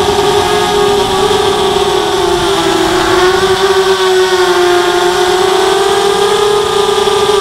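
ZMR250 racing quadcopter's four RCTimer 2300 kV brushless motors spinning 5x3 propellers, heard from the onboard camera: a loud, steady whine that dips in pitch a few seconds in and climbs back toward the end as the throttle changes.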